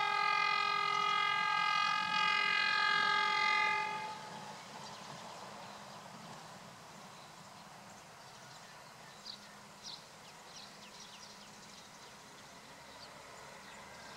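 Horn of an approaching SRT Alsthom diesel-electric locomotive sounding one long blast of about four seconds, dipping briefly midway. After it the train's distant engine and wheels rumble faintly as it draws nearer, with a few faint bird chirps.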